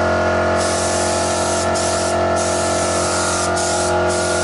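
Primer being sprayed onto a car spoiler: a steady spray hiss that starts about half a second in and comes in passes with several brief pauses.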